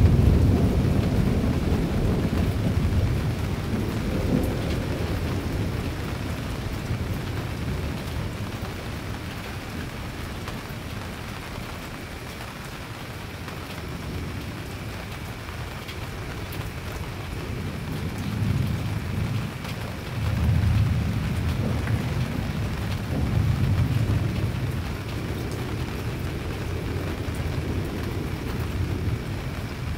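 Thunder from a lightning storm rolling and fading away over the first several seconds over steady rain, then more low rumbles of thunder swelling and dying down about two-thirds of the way through.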